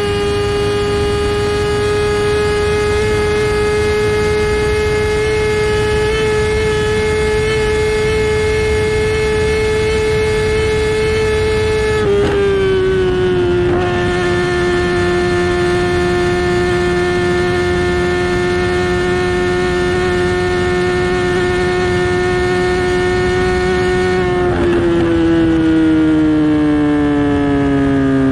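Kawasaki ZX10R inline-four sport bike with an SC Project exhaust, pulling at high revs at speed. The engine note holds high and steady, dips slightly about twelve seconds in, holds again, then falls steadily near the end as the bike comes off the throttle and slows.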